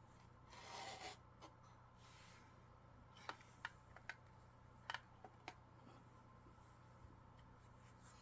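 Near silence: room tone with a soft rustle about a second in and about six faint, scattered clicks in the middle.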